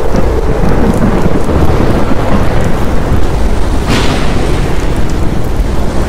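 Thunderstorm: heavy rain over a continuous low rumble of thunder, with a sharp crack about four seconds in.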